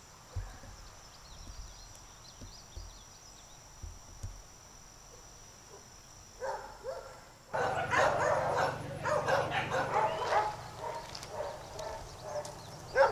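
Quiet at first, with a faint steady high whine. About six and a half seconds in a dog barks, and a second later several shelter dogs start barking and yelping at once in their kennels.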